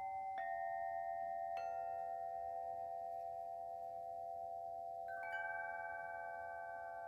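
Koshi chime ringing in clusters of sweet, overlapping tones, with new clusters sounding about half a second in, again about a second later, and twice more in quick succession near the end. Each ring hangs on and slowly fades under the next.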